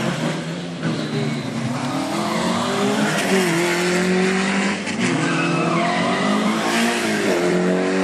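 Rally car engine under hard acceleration, its revs climbing and dropping back several times as it shifts gear or lifts off the throttle.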